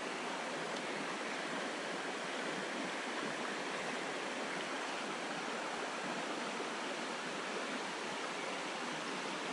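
Shallow creek water running steadily over rocks, an even rushing hiss.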